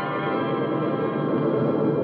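A held brass chord fades out at the end of a music bridge while the steady drone of a four-engine aircraft's engines, a radio-drama sound effect, comes up underneath.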